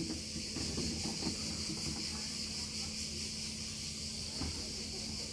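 Steady high-pitched chorus of chirping insects.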